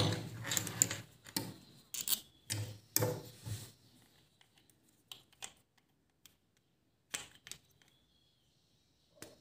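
Plastic helmet-mount parts being handled and fitted together: a flurry of knocks and rattles for the first few seconds, then a handful of light separate clicks.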